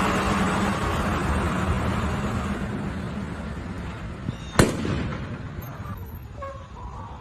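A single sharp bang about four and a half seconds in, over a steady rushing noise that slowly fades away.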